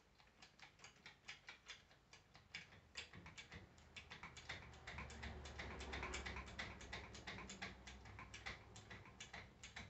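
Hand-pumped hydraulic crimping tool being worked, its pump strokes making a fast run of faint clicks as it builds pressure to crimp a lug onto heavy-gauge battery cable.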